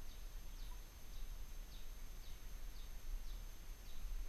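Rural outdoor ambience: a steady low rumble with short, high, falling chirps repeating about twice a second.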